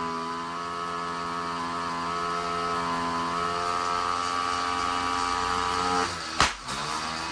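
Small two-stroke bicycle engine, run on hydrogen gas, holding a steady idle. It cuts out about six seconds in, and a sharp knock follows.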